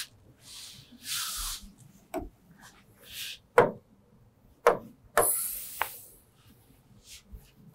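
Pen tapping and rubbing on an interactive smart-board screen: a few sharp taps, the loudest about three and a half and five seconds in, with soft brushing noises in between.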